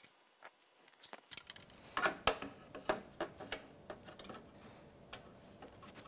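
Small, sharp metal clicks and taps from work on a desktop PC case's expansion-slot cover with a screwdriver, starting about a second in and loudest a little after two seconds, then fading to faint scattered ticks.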